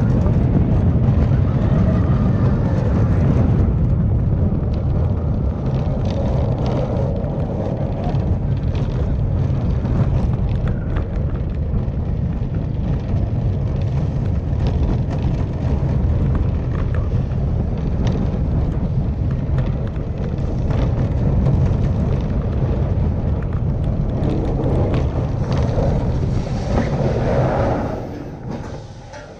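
Steel roller coaster train running over its track: a loud, steady rumble of wheels on rail mixed with wind rush. It drops away sharply near the end as the train enters the covered station.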